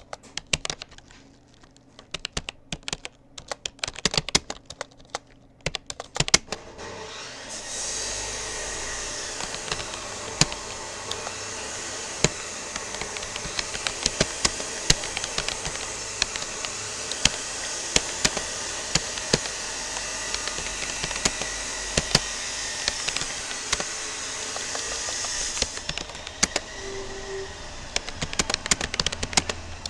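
Rapid, irregular keystroke clicking on a Rapoo computer keyboard. From about six seconds in until a few seconds before the end, a steady rushing noise, like an appliance blower, runs under the typing and then cuts off.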